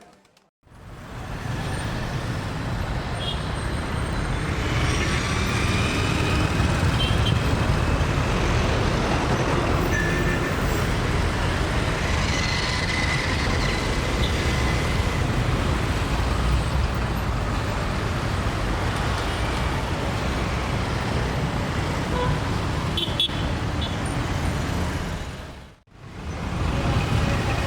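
Busy city road traffic: a steady rumble of engines and tyres with scattered horn toots. It starts about half a second in, after a short silence, and drops out briefly near the end.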